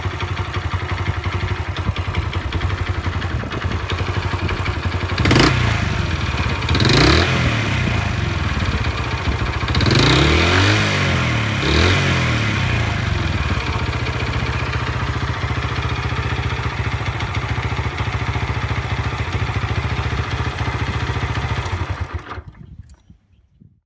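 Honda AA01 Super Cub's 50 cc four-stroke single idling, blipped up four times, then switched off near the end and dying away. It is running on high-octane fuel with a freshly overhauled carburettor, which the owner found improved the knocking.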